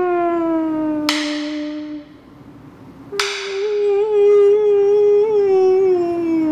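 Eerie horror-film score: a held, howling tone that slides slowly down in pitch and stops about two seconds in, then a new one struck about three seconds in that wavers and sinks again near the end.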